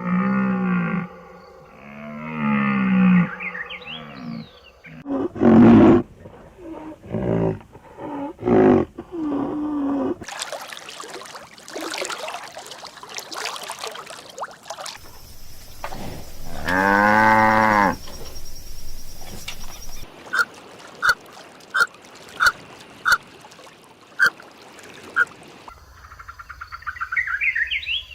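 A run of different farm animal calls cut one after another. First come several pitched calls, then a stretch of noise and one long pitched call. Near the end there is a series of short, evenly spaced calls and then a rising call.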